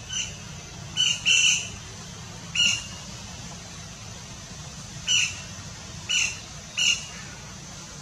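Flameback woodpeckers giving about six short, sharp calls, spaced irregularly, over a steady low background rumble.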